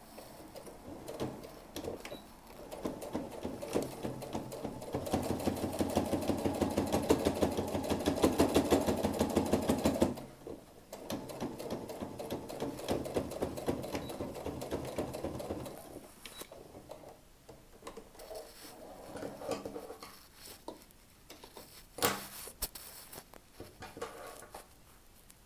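Domestic sewing machine top-stitching a folded fabric edge: a fast, even run of needle strokes that builds up and is loudest until about ten seconds in, stops briefly, then runs again more quietly and stops. Softer fabric handling and one sharp click follow near the end.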